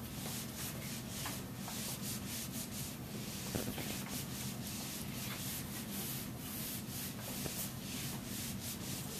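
Whiteboard eraser rubbing across a whiteboard in quick repeated strokes, about three a second, wiping the board clean.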